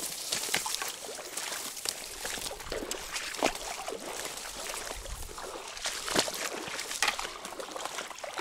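Dry reeds and grass rustling and crackling close by, with many irregular small clicks, over water trickling and lapping against the bank.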